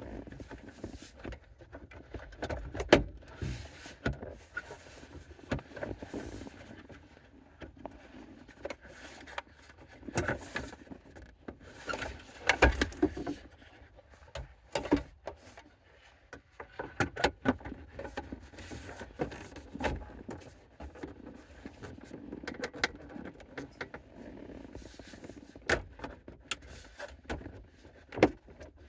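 Irregular clicks, knocks and light rattles of parts and tools being handled while the steering column and dash trim are put back together in a car interior, a few sharper knocks standing out among them.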